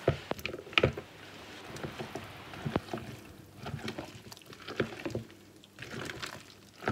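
Chopped lemon pieces tipped off a wooden cutting board into a plastic jug of cake batter, with a few knocks in the first second. Then a spoon stirs the thick batter: irregular wet squelching and scraping, with occasional clicks.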